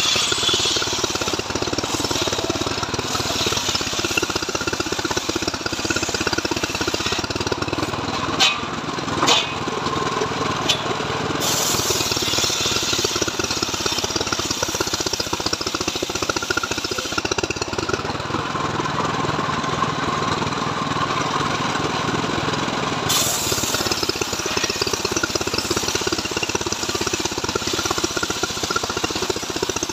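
Engine-driven homemade circular sawmill running steadily while its blade rips a mahogany log lengthwise. A high hiss rises and falls over the cut, and two sharp knocks come about eight and nine seconds in.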